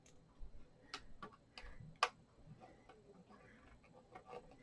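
Faint, irregular clicks and taps of small laptop parts being handled during an SSD swap in a MacBook Air, with sharper clicks about one and two seconds in.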